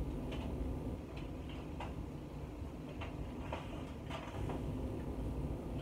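Light, irregular clicks and taps from a spice jar being opened and handled while seasoning is added to soup, over a steady low hum.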